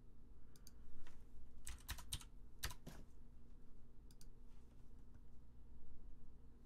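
Computer keyboard keystrokes and clicks, a few scattered taps with a quick run of them about two to three seconds in, over a faint steady hum.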